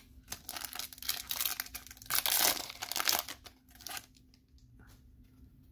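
Foil trading-card booster pack wrapper being torn open and crinkled by hand. The crackling is loudest about two to three seconds in, then dies down.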